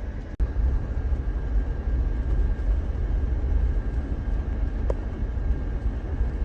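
Steady low rumble of a Jeep under way, with road and wind noise; the sound cuts out for an instant about half a second in.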